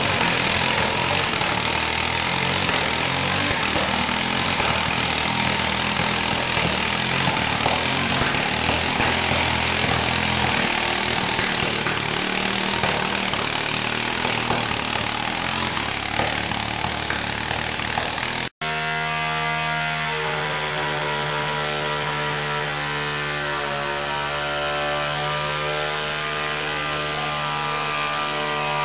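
Pulling garden tractor's small engine running hard under load on the track. After a brief break in the sound about two-thirds of the way through, a modified pulling garden tractor's engine runs at a steady speed.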